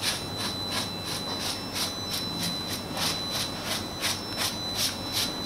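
Rapid, even scraping strokes on the crisp skin of a whole roast pig, about four a second, over a steady high whine.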